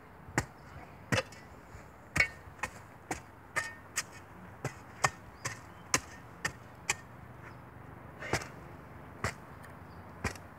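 Shovel blade stabbing repeatedly into hard, dry dirt, a sharp strike with each stab. The strikes come roughly two a second, with a short pause about two thirds of the way through.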